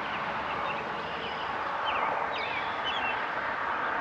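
Outdoor ambience: small birds chirping in short, quick calls that rise and fall, a cluster of them about two to three seconds in, over a steady rushing background noise.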